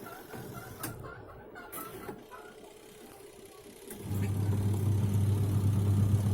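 Twin-tub washing machine's electric motor switched on about four seconds in, giving a steady low mains hum, tested after its capacitor was replaced. Before it, light rapid ticking.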